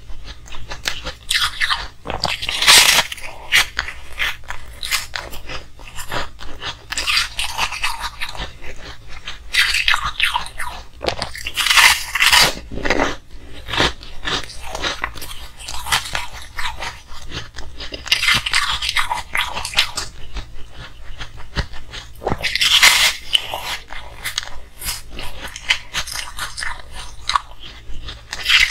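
A person biting and chewing pieces of pastel-coloured frozen ice, with many sharp crunches. A louder bite cluster comes roughly every ten seconds.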